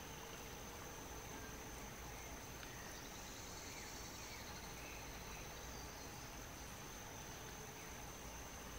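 Faint forest ambience: a steady high-pitched insect trill, with a few faint short chirps here and there.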